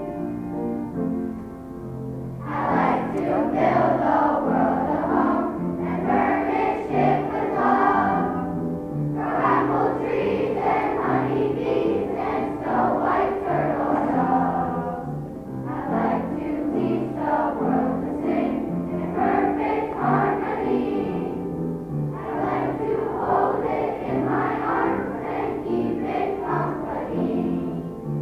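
Children's choir singing with piano accompaniment. The piano plays alone at first, and the voices come in about two and a half seconds in, singing in phrases with short breaks between them.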